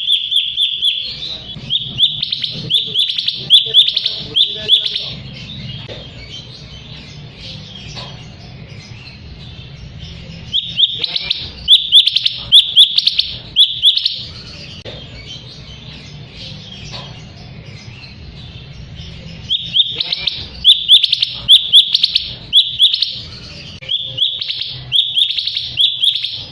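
Cucak cungkok songbird singing in three bouts of rapid, loud, high chirping notes a few seconds each, with pauses between, as a lure song for other birds.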